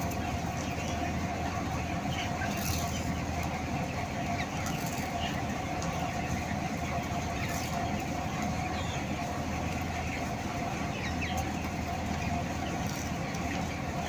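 Steady mechanical drone with a constant hum inside an enclosed broiler house, with faint, scattered short calls from the broiler chickens on the floor.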